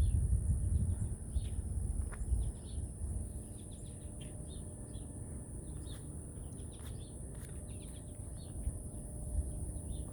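Small birds chirping and calling in short notes throughout, over a steady low outdoor rumble that is loudest in the first couple of seconds.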